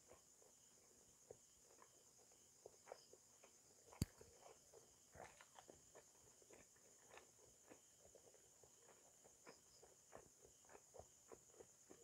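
Near silence: a faint, steady, high-pitched chirring of night insects, with scattered faint clicks and one sharper click about four seconds in.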